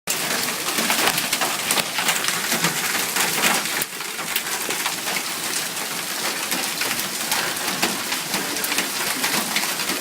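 Hailstones and rain pelting down in a hailstorm: a dense, steady clatter of countless small impacts, easing slightly about four seconds in.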